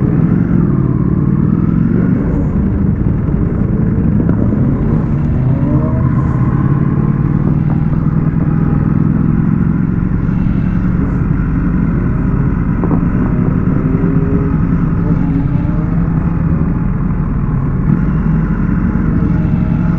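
Superbike engines running in a group, the revs rising and falling again and again over a steady engine drone.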